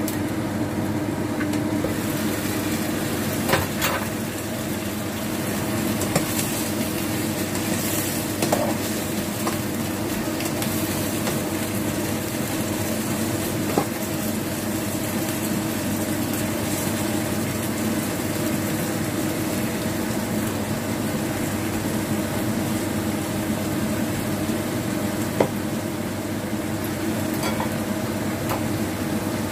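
Green vegetables sizzling as they stir-fry in a frying pan, with a spatula knocking and scraping against the pan a few times, over a steady hum.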